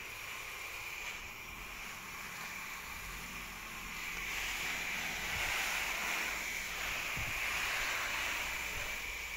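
Water spray from a garden hose hissing as it rains down onto garden plants and leaves, growing louder about four seconds in.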